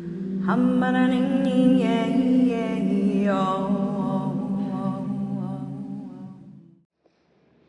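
Humming and chant-like singing: a low drone of held voices with a higher sung voice gliding over it, all dying away near the end.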